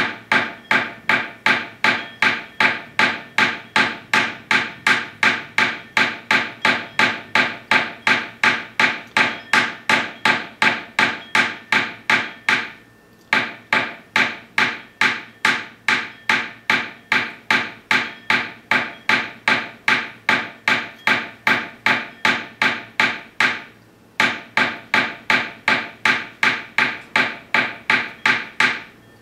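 Metal hammer striking silver wire on a steel bench block in quick, even blows, about two and a half a second, each with a short metallic ring: cold-forging the wire flat for a pendant bail. The hammering pauses briefly twice, a little before halfway and about four-fifths through, and stops near the end.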